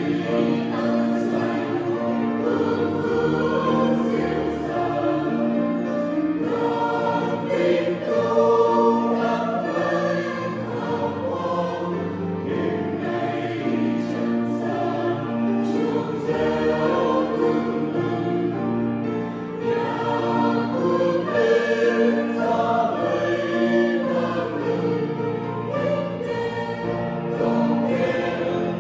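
Mixed choir of men and women singing a hymn in parts, sustained and continuous.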